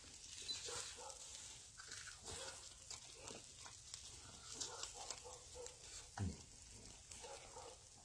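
Faint wet chewing and lip-smacking as grilled rib meat is eaten by hand, with small irregular clicks and one short low vocal sound about six seconds in.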